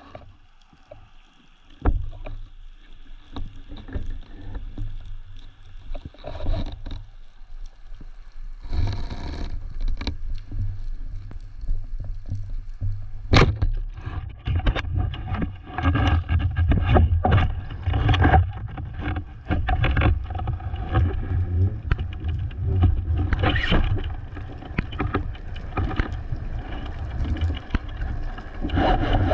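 Underwater sound picked up through a speargun-mounted action camera's housing: a low rumble of water moving past, starting about two seconds in, with many knocks, clicks and scrapes as the gun and camera are handled and moved along the rock. One sharp click stands out about halfway through, and the noise is louder and busier in the second half.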